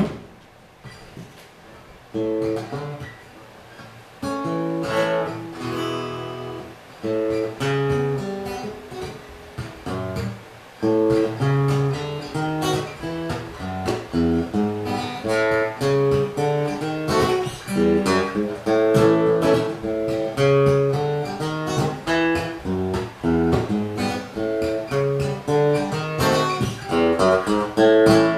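Acoustic guitar played solo, picking and strumming a bluesy rhythmic chord pattern that starts about two seconds in, after a short sharp knock at the very start.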